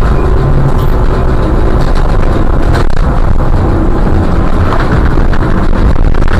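Trolleybus on the move, heard from the driver's cab: a loud, steady rumble of road and running noise, with a sharp knock about three seconds in.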